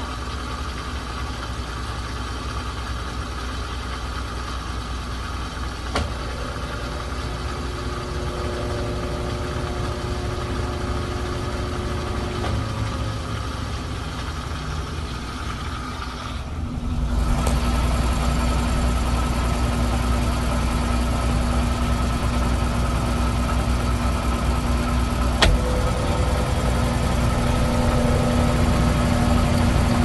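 Brastemp Ative BWL11 top-loading washing machine running with its basket spinning: a steady motor and belt-drive hum. About halfway through it becomes louder, with a steady low hum. Two brief clicks, the second sharper, about a fifth and five sixths of the way in.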